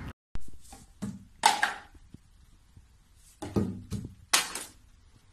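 Plastic toiletry bottles knocking and clattering as a cat pushes them off a bathroom shelf: a string of sharp thuds, the loudest about a second and a half in and a cluster between three and a half and four and a half seconds in.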